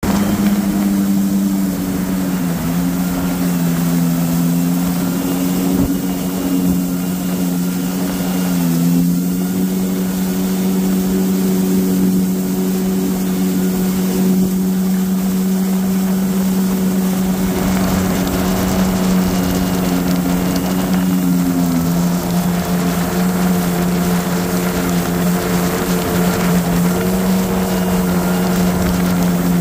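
Kawasaki Ultra 310 LX-S jet ski's supercharged four-cylinder engine running steadily, its pitch dipping briefly a few times as the throttle changes.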